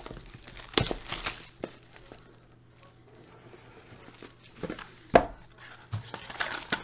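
Cellophane shrink wrap torn and crinkled off a cardboard trading-card box, then the box handled and opened, with scraping and a sharp tap about five seconds in.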